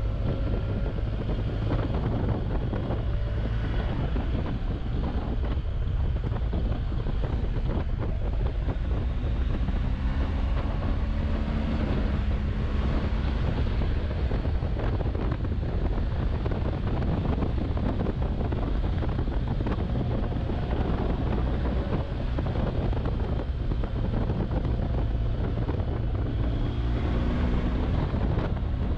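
Wind rushing over the microphone of a moving motorcycle, with the engine faintly heard underneath; its pitch rises and falls a couple of times with the throttle.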